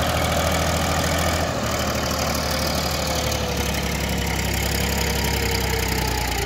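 Diesel tractor engines idling steadily, with a held whine that drifts slowly lower in pitch.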